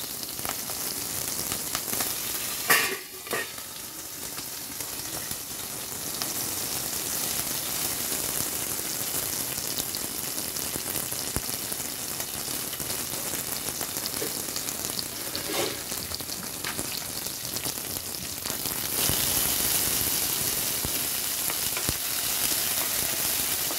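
Tempering spices (cumin, mustard seeds, green chilli) sizzling in hot oil in a pan while being stirred. A short knock of the spoon comes about three seconds in, and the sizzle grows louder about nineteen seconds in.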